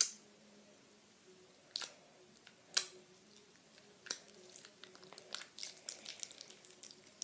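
Homemade glue-and-borax slime being squeezed and worked by hand: a few sharp wet pops and squelches, then a quicker run of small sticky crackles near the end.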